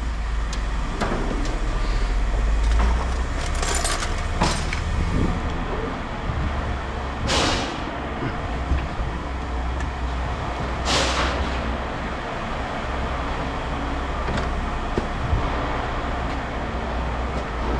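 Steady low rumble of a motor vehicle, with two brief rushing swells about seven and eleven seconds in and a few faint clicks.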